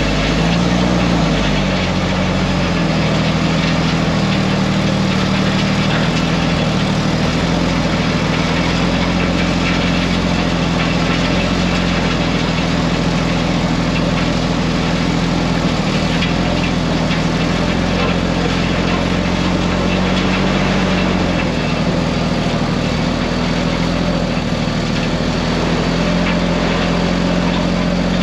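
Dump truck's diesel engine running steadily, its pitch changing only a little.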